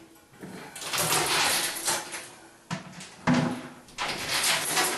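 Porcelain toilet tank being lifted off the bowl: scraping and handling noise, with two sharp knocks a little before the middle.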